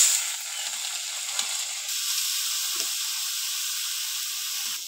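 Small shrimp frying in a little hot oil in a kadai (wok), sizzling loudest just as they are tipped into the pan at the start, then a steady sizzle.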